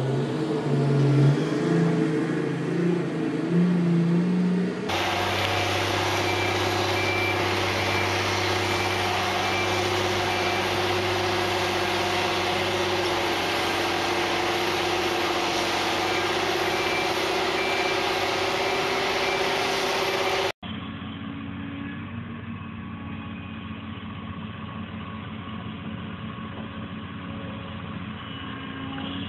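Diesel engines of heavy earthmoving machines, heard in three cut-together clips. First a large excavator's engine rises and falls in pitch as it works. Then a tracked tractor's engine runs steadily under load with a faint repeated beep. After a sudden cut, a second excavator's engine runs more quietly.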